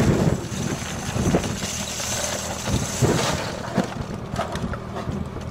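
Loose brass rifle cartridges poured from a metal ammo can into a plywood crate: a rattling jingle for about three seconds, with a few knocks of can and cartridges against the wood, over a steady low engine hum.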